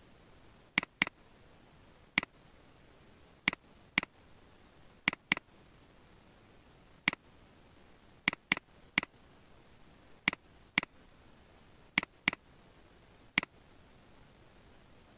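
Computer mouse button clicking: about sixteen sharp clicks, some single and some in quick pairs, over a faint hiss.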